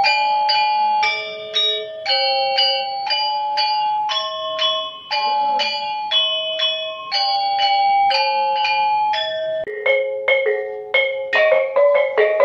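Balinese gamelan bronze-keyed metallophone struck with mallets, playing a repeating melodic pattern of ringing notes, about two a second. About ten seconds in the sound cuts to faster, denser strokes in a lower, overlapping pattern.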